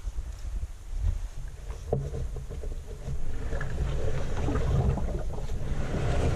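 Aluminium canoe hull sliding and scraping up over wooden skid logs and soft ground as it is hauled ashore by its bow rope. The sound carries through the hull into the camera mount, so it comes across as a low, grinding scrape that sounds like scraping on rocks, with a knock about two seconds in and a louder scrape from about three seconds in.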